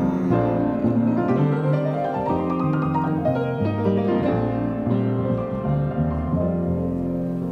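Live performance of an original composition led by piano: held chords under a melodic line that climbs in pitch about two seconds in.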